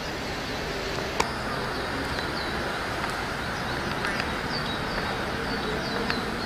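City street ambience: steady traffic noise with a small bird chirping repeatedly, short falling chirps coming a few times a second from about halfway through. A single light click about a second in.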